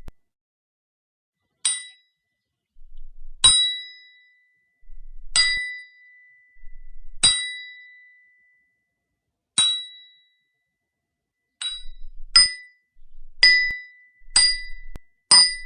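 Hammer striking a chisel: about ten sharp metallic blows at uneven intervals of one to two seconds, each leaving a short high ring that fades away.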